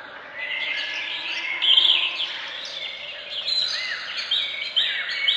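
Birds chirping and singing, a dense chorus of short chirps and arching whistled notes over a steady hiss, loudest about two seconds in.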